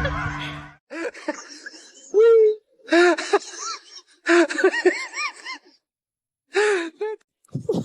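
A voice making short rising-and-falling cries in several bursts, starting about a second in.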